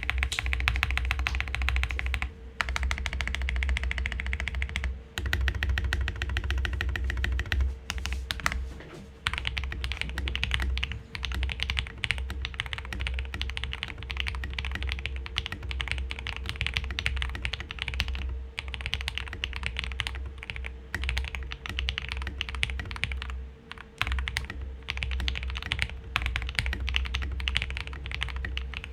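Fast, continuous typing on a Keycool KC84 mechanical keyboard fitted with lubed Akko switches and Taihao doubleshot PBT keycaps, with a few brief pauses between runs of keystrokes.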